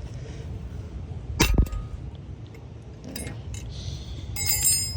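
Flathead screwdriver prying a part off a rear brake assembly. A sharp metal clink with a short ring comes about a second and a half in, a lighter click follows, and a jingling metallic ring comes near the end.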